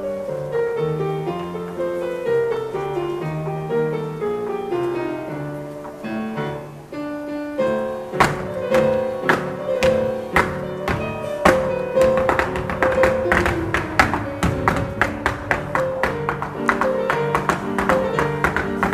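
Grand piano playing a flamenco-style zambra. About eight seconds in, sharp heel-and-toe stamps of flamenco footwork on a dance board come in over the piano and grow quicker and denser toward the end.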